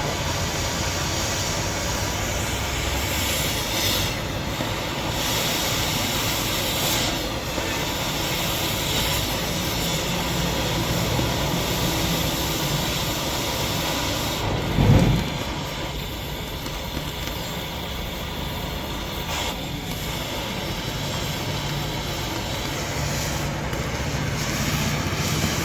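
Steady noise of electric arc welding on a truck's steel chassis frame, closing a crack in the main chassis rail. A single dull thump comes about fifteen seconds in.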